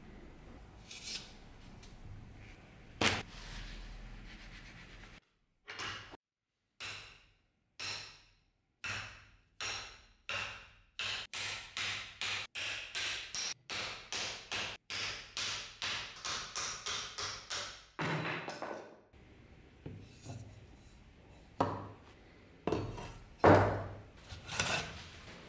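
Old wooden handle being worked loose from a rusty bardiche head clamped in a vise: a long run of short, sharp knocking strokes that speed up from about two a second to about three a second. Near the end come a few separate heavier thuds.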